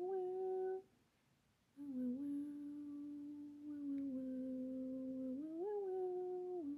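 A woman softly humming a slow, wordless tune in long held notes that slide from one pitch to the next, with a pause for breath about a second in.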